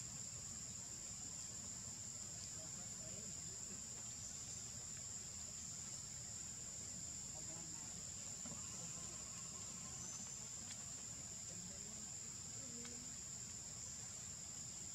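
Steady high-pitched drone of insects in the forest, unbroken throughout, over a faint low background rumble.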